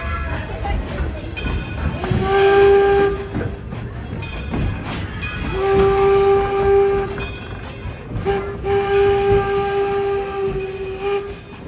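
Steam locomotive whistle blown three times, two shorter blasts and then a long one, each a steady held tone, over the low rumble of the train.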